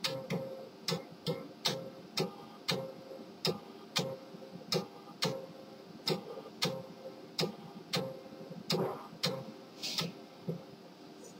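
HP LaserJet M1522 multifunction printer clicking about twice a second, a sharp tick with a short ring each time, as it powers up and initialises after its formatter board repair. A brief hiss comes near the end.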